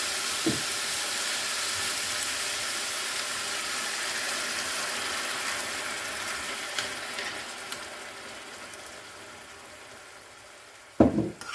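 Minced meat and canned tomato sizzling in a stainless frying pan, the sizzle fading steadily, with a few faint clicks of a metal spoon stirring. A sharp knock near the end.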